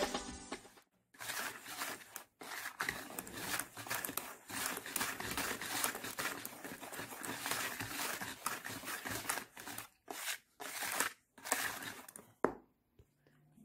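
Wire whisk stirring dry flour in a plastic bowl: a scratchy rustle of strokes broken by a few short pauses, stopping about a second before the end.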